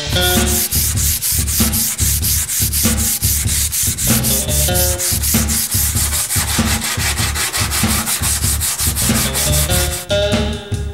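Sandpaper rubbing back and forth along a varnished hickory axe handle to strip the varnish, in quick even strokes of about four or five a second that stop near the end. Background music with notes and a low beat plays underneath.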